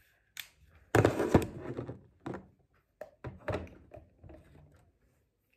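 Thuds and knocks of a hair straightener and small items being handled and set down on a tabletop. The loudest cluster comes about a second in, followed by a run of lighter knocks.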